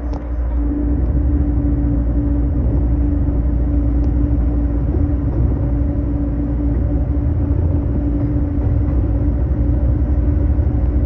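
Running noise heard inside a JR Kyushu BEC819 series battery electric train under way: a steady low rumble with a constant hum running through it.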